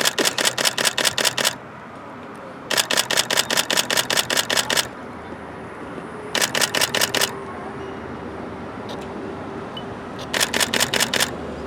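Camera shutters firing in rapid continuous bursts, about eight clicks a second. There are four bursts: two longer ones, then two shorter ones near the end.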